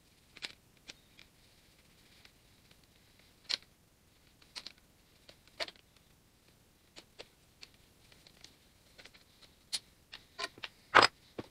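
Metal brush cover band on an Allis-Chalmers WD45 starter motor being pried off with two screwdrivers: scattered light metallic clicks and taps, with the loudest few near the end as the band comes free.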